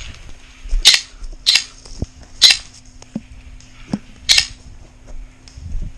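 Airsoft guns firing four single shots, sharp snapping pops spaced unevenly over about three and a half seconds, with a few fainter knocks between them.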